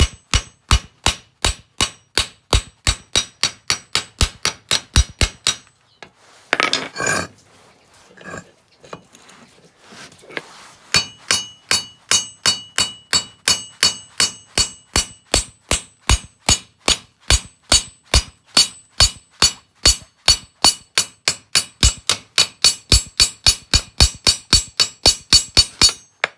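Hand hammer riveting the ear onto a new combine header sickle: a fast, steady run of ringing metal-on-metal blows, about three a second. The hammering stops about six seconds in, with a short scrape, and starts again about eleven seconds in.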